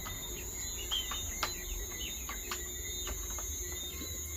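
Young chickens peeping in repeated short chirps over a steady high insect drone, with two sharp clicks in the middle.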